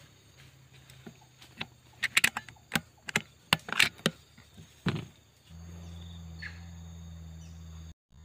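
Rifle-mounted scope camera picking up handling noise as the rifle is swung, an irregular run of sharp clicks and knocks for about three seconds. About five and a half seconds in, a steady low electrical hum takes over, and it cuts out briefly near the end.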